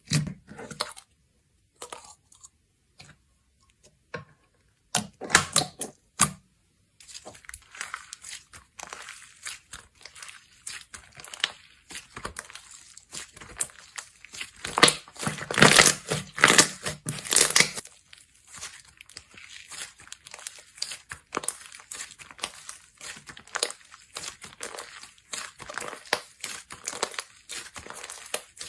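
Slime being squeezed and stretched by hand, giving off many small pops and clicks. A few separate pops come first, then from about seven seconds in a dense, continuous run of clicking that is loudest about halfway through.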